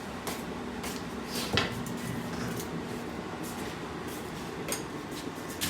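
Kitchen dishes and utensils knocking and clinking a few times, the loudest knock about a second and a half in, over a steady low hum.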